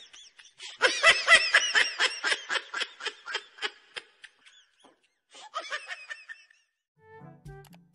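High-pitched laughter in quick repeated bursts that trails off over a few seconds, then a second, shorter fit of laughter.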